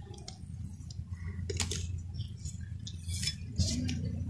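Light clinks and scrapes of metal against a large aluminium cooking pot holding roasted gram flour and nuts, with a few scattered sharp knocks over a steady low hum.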